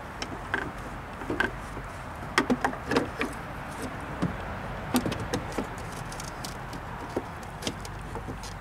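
Honda CR-V tail light housing being handled and pushed back into place: irregular hard plastic clicks and knocks, clustered a couple of seconds in and again around five seconds.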